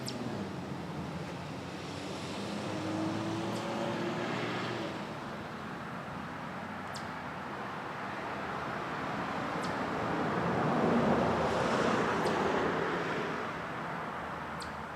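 Passing road traffic: a vehicle's sound swells and fades, loudest about ten to thirteen seconds in, with a few faint sharp ticks scattered through.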